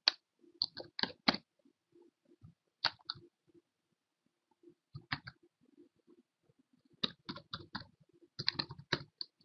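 Typing on a computer keyboard: irregular keystroke clicks in short bunches, with a denser run in the last couple of seconds.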